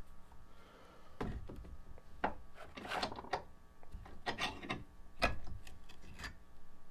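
Workshop handling noises: a run of short scrapes, rubs and knocks as parts and hand tools are worked on a bench.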